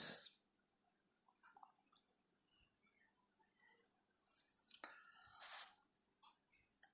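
A cricket chirping steadily in the background: a high, evenly pulsing note at about ten pulses a second. A brief soft rustle about five and a half seconds in.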